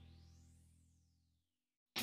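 Background music: a held low synthesizer chord fading away, with a sweep that rises and then falls in pitch, dying out to silence a little past halfway. A new piece with plucked notes starts right at the end.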